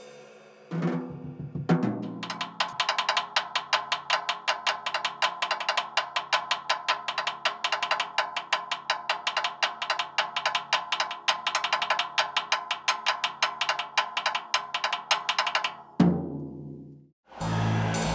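Drumming: a few opening hits, then a fast, even run of drum strikes, about six a second, ending in a low boom about sixteen seconds in.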